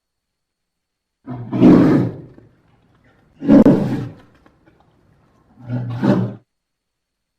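Bear roaring three times, each roar about a second long with short silences between, the last one shorter.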